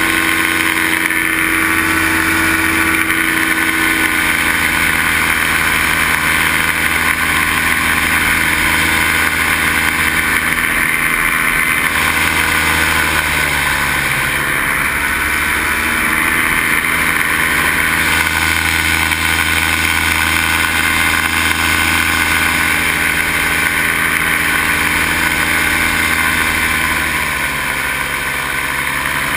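Paramotor engine and propeller running steadily at cruise, loud and close. The engine note shifts slightly a few times, easing off a little near the end.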